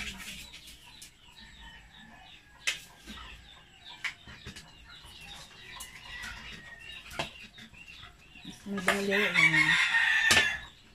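A rooster crows once near the end, loud and drawn out with the pitch dropping at the close, over faint clucking and chirping of fowl. A few sharp knocks come earlier.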